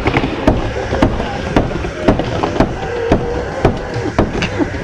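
Skateboard wheels rolling and carving on the wooden surface of a backyard bowl, a steady rumble broken by many sharp clacks and knocks.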